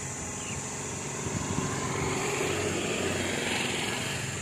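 A small motor vehicle's engine passing nearby, swelling in the middle and easing off toward the end.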